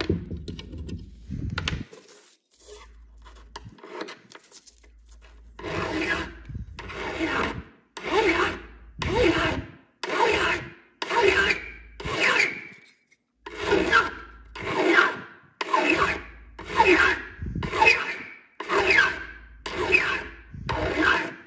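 A hand file scrapes across the edge of an AK magazine catch in about fifteen even push strokes, roughly one a second, with a short pause partway through. The file is taking metal off the catch to fit it to the receiver. A few light clicks at the start come from the catch being handled in the receiver.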